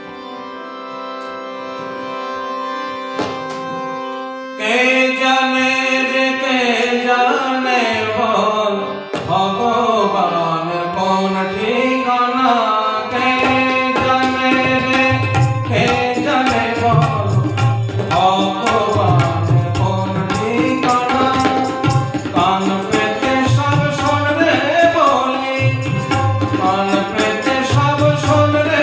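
Harmonium holding sustained chords that swell in loudness. About four and a half seconds in, a man starts singing a devotional song over it. Tabla joins a few seconds later and keeps a steady rhythm, with deep bayan strokes under the sharper dayan strokes.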